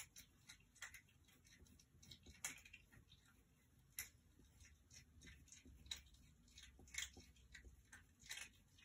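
Pencil sketching on paper: faint, irregular scratches and ticks of the lead on the sheet.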